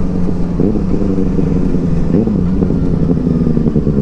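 Motorcycle engine running steadily, with brief changes in engine pitch about half a second in and again just after two seconds, over a low rumble.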